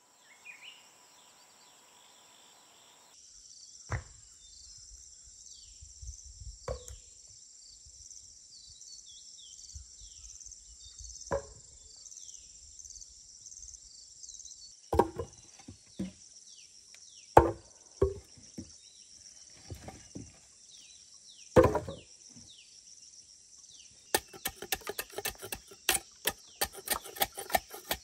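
Forest ambience: a steady high insect drone with short falling bird chirps, broken by scattered single knocks. About four seconds before the end a fast run of light chops starts, several a second, as a machete trims a log.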